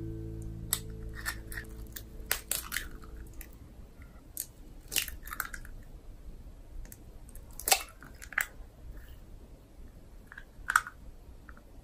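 Eggs cracked one at a time on the rim of a stainless-steel mixing bowl: sharp taps and the crunch of breaking shell, some in quick clusters and others a few seconds apart.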